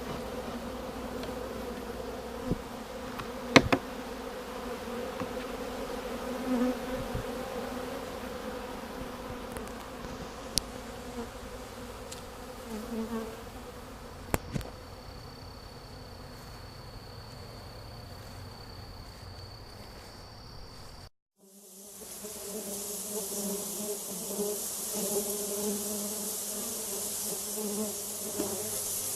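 Many honey bees buzzing in a steady hum, with a few sharp knocks. The sound drops out briefly about three-quarters of the way through, then the buzzing resumes with added hiss.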